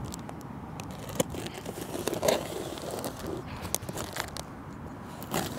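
A knife slicing open a cardboard box along its taped seam, with scraping and tearing and a few sharp clicks.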